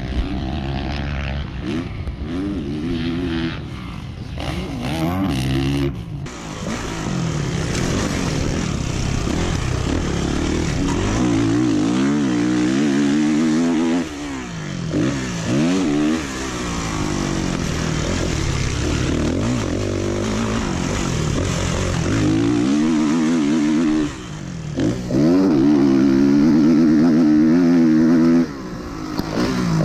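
Motocross dirt bike engine being ridden hard, its pitch climbing and falling again and again as the rider opens and chops the throttle around the track, with a few abrupt throttle cuts.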